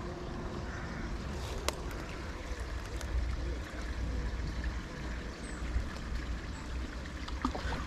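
Shallow river water flowing and trickling steadily, with a few faint clicks.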